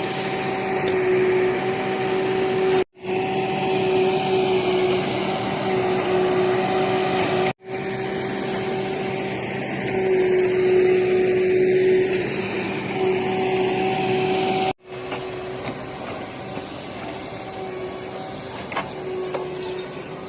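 Backhoe loader's diesel engine running steadily under load, with a constant whine over it; the sound cuts out for an instant three times.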